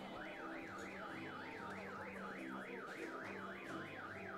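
Electronic car alarm siren warbling rapidly up and down in pitch, about four sweeps a second, sounding faintly.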